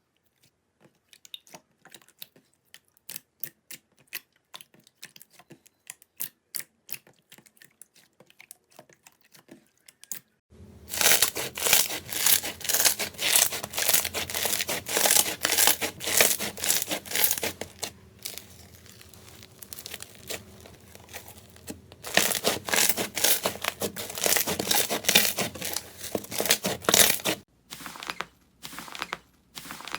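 Slime being squeezed and worked by hand: scattered soft clicks and pops at first, then, about a third of the way in, dense loud crackling and popping. It eases off for a few seconds in the middle, comes back, and stops shortly before the end, leaving a few separate pops.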